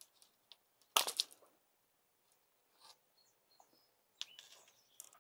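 Tin snips cutting the aluminum edge strip of a micro-mesh gutter guard: a few light clicks, then a cluster of sharp snips about a second in, the loudest sound. Just after four seconds comes a short metallic rattle as the mesh panel is handled.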